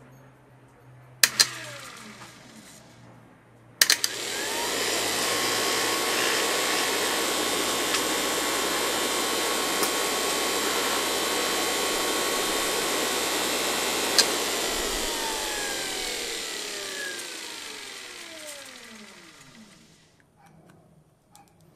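12-volt DC dynamotor (electromechanical motor-generator) started by jumpering its solenoid: two sharp clicks, then the motor spins up and runs with a steady whine and hum for about ten seconds. It then shuts off and coasts down, its whine falling in pitch until it stops.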